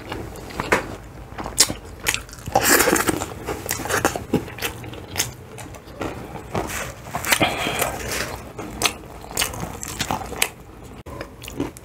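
Close-miked crunching and crackling of crispy fried chicken breading, in many short crisp crackles, as pieces are handled, torn and eaten.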